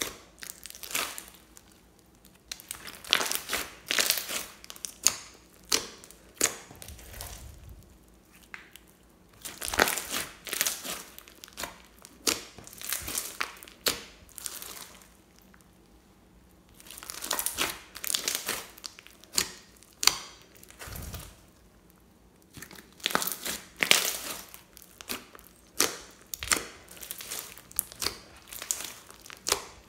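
Hands squishing and pressing a large glitter slime with beads mixed in. It crackles and pops in several bursts of a few seconds each, with quieter pauses between, as the air pockets trapped in it are squeezed.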